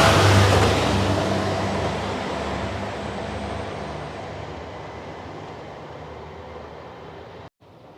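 JR Shikoku 2700-series diesel express train moving away after passing, its engine and wheel noise fading steadily. The sound drops out for an instant near the end.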